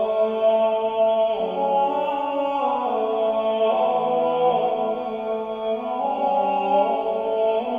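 Several voices singing medieval polyphony in long, held chords that move to new notes every second or two.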